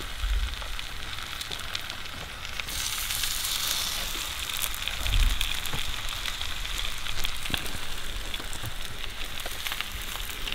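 Breaded grayling frying on a cast iron griddle: a steady sizzle full of fine crackling, which grows louder about three seconds in. A brief low bump comes about five seconds in.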